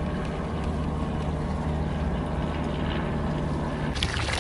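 A boat's engine idling with a steady low hum. About four seconds in, water splashes and sloshes as a striped bass is lowered back into the sea by hand.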